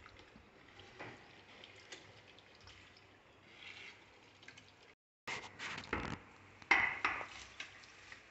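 Steel spoon stirring thick, oily tomato pickle in a stainless steel bowl, scraping and knocking against the sides. After a short break in the sound, a steel plate used as a lid clatters against the bowl, with one loudest clank near the end.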